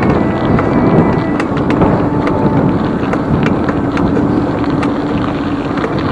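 Wind rushing over the microphone of a camera riding on a mountain bike, loud and steady, with scattered clicks and knocks from the bike rattling over the ground.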